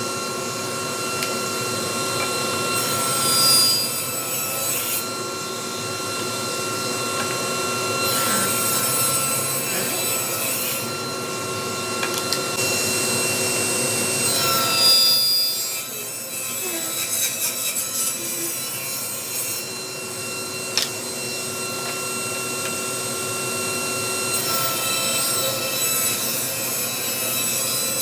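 Power saw running and cutting scrap wood into strips, a steady motor tone under the noise of the cut that changes every few seconds as pieces are fed through.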